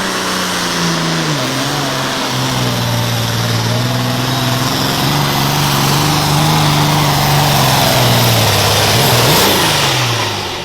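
Super farm pulling tractor's turbocharged diesel engine under full load on a pull, its pitch sagging about a second in and then holding steady. Near the end it revs briefly up and down and the sound falls away, as the tractor runs into trouble that the announcer could tell left it not okay.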